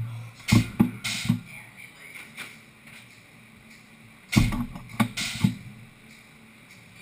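Scattered knocks and bumps from handling around the CNC mill's enclosure: a cluster about half a second in and another about four and a half seconds in, with a faint hum in between.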